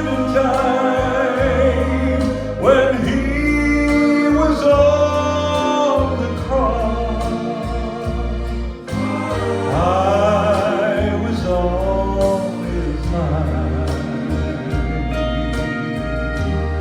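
Gospel song: a solo singer holds long, wavering sung notes over instrumental accompaniment with a steady bass.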